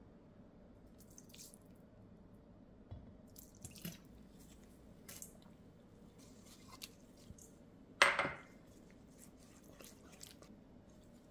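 Small clicks, taps and drips as ingredients are poured into and mixed in a stainless steel mixing bowl, with one sharp clank against the bowl about eight seconds in.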